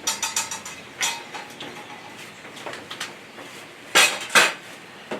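Lit charcoal and metal clinking and clanking as hot coals from a chimney starter go into a Pit Barrel Cooker's coal basket: a run of light clinks, then two louder clanks about four seconds in.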